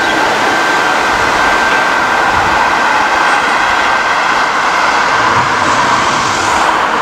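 British Rail Class 45 'Peak' diesel-electric locomotive D123, with its twelve-cylinder Sulzer engine, running steadily as it approaches at the head of a train, with a thin steady high whine over the engine and rail noise.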